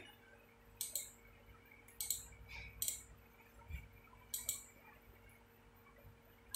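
Faint clicks of a computer mouse or trackpad button, about four or five, spaced roughly a second apart, with one duller knock near the middle.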